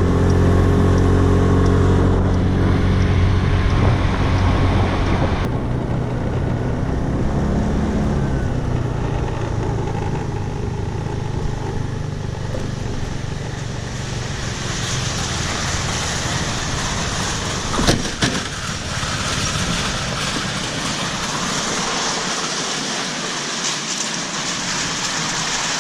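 A road vehicle driving: a steady engine drone for about the first half, giving way to mostly rushing road and wind noise in the second half, with one short knock partway through.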